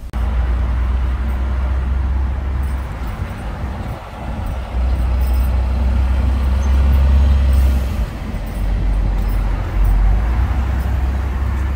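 Inside a car driving in city traffic: a loud, steady low rumble of engine and road, with traffic noise above it, dipping briefly about four seconds in.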